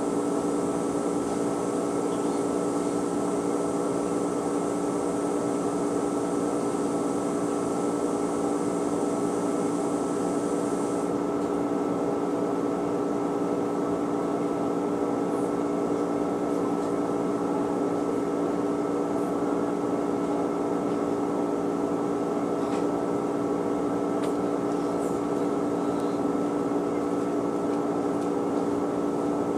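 Front-loading washing machine running: a steady machine hum with several fixed tones. A high hiss stops about eleven seconds in.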